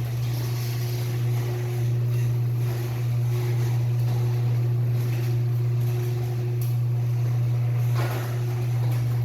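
Commercial garage door opener motor running with a steady low hum, with a brief rush of noise about eight seconds in.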